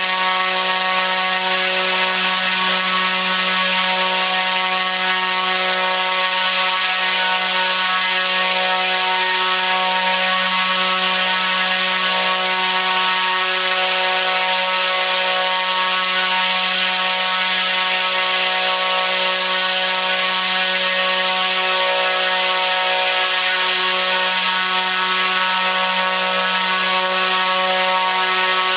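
T-Motor U13 100kV brushless motor spinning a 29-inch three-blade carbon propeller at full throttle on 12S: a steady, unchanging low buzz with many overtones. It is a sustained full-power endurance run.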